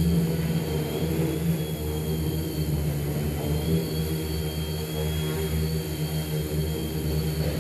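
Small multirotor drone's electric motors and propellers humming steadily, with a faint high whine that wavers slightly in pitch.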